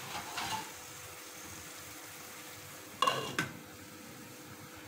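Taro stolons sizzling softly in an oiled pan. About three seconds in, a glass pan lid is set down on the pan with two quick knocks that ring briefly.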